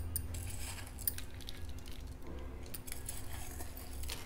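Faint scattered clicks and light jingles of bangles and a small steel bowl as sev is pinched and sprinkled by hand, over a steady low background hum.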